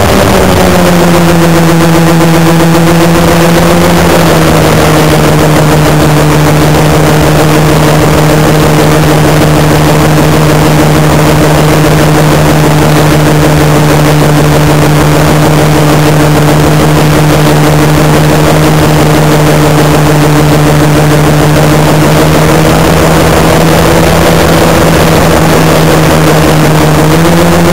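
Onboard sound of a home-built twin-motor electric model airplane: its brushless electric motors and propellers running with a loud, steady hum over a rush of noise. The pitch drops a little about four seconds in and climbs again near the end.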